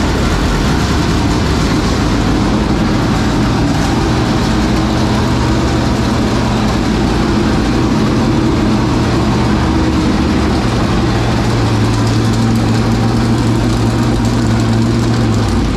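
465-cubic-inch dirt late model V8 race engine running steadily at a loud fast idle after being cranked, then cutting out abruptly near the end. It runs only on the fuel already in the carburetor while fuel pressure falls away, which the crew take for a failed fuel pump.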